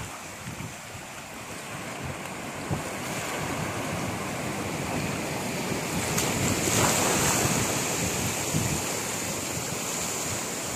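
Sea waves washing, with wind buffeting the microphone; the rush swells to its loudest about seven seconds in.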